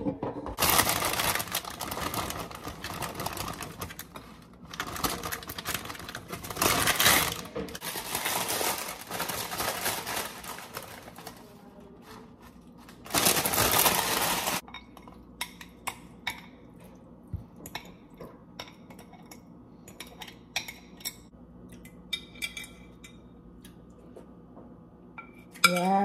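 Kitchen food prep: a plastic bag of spinach crinkling and rustling in long bursts through the first half, then scattered clicks and clinks of a spatula against glass food-storage containers and their plastic lids, with a brief wavering pitched sound right at the end.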